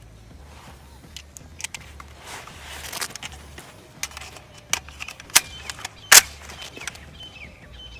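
Metallic clicks and clacks of a POF 5 9 mm pistol being handled to clear a cartridge that failed to eject and make it ready to fire again, with a sharp, loud clack about six seconds in.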